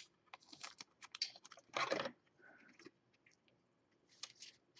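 Trading cards and a clear plastic sleeve being handled: scattered soft clicks and crinkles, with a louder rustle about two seconds in.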